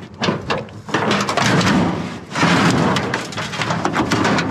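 Stainless steel sink being shifted and scraped against other scrap metal, with rattling and knocks.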